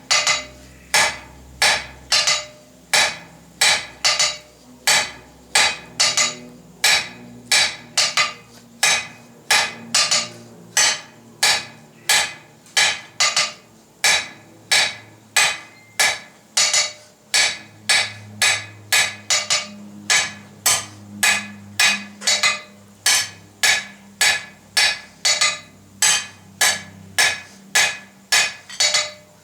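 Hand hammer blows on a 16 mm mild steel bar against an anvil, drawing out a tapered point, at a steady rhythm of about two strikes a second. Each blow has a short metallic ring.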